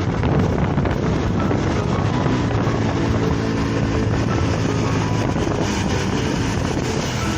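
Heavy hail falling, a loud, steady, dense rush of noise.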